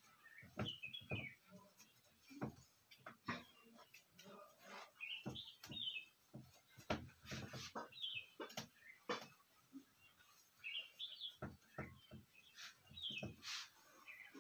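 Whiteboard being wiped clean by hand: quiet, irregular rubbing strokes across the board, with short high squeaks scattered among them.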